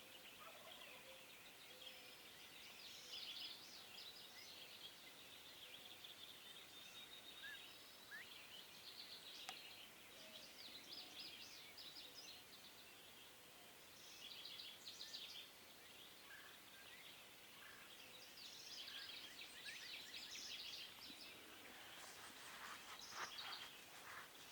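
Faint songbirds singing, short high-pitched phrases repeating every second or two over a quiet background hiss.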